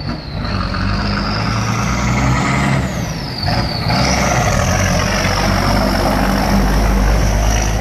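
Turbocharged multifuel inline-six diesel of an AM General M35A2 truck running as it drives, with a high turbo whistle over the engine's rumble. The whistle rises steadily, drops back briefly about three and a half seconds in, then climbs again and holds high.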